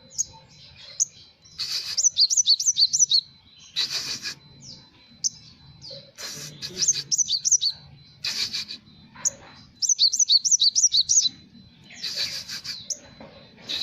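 Sunbird song played from a recorded bird-song track: phrases of rapid, sharp, high chirps repeated several times, broken by short raspy bursts.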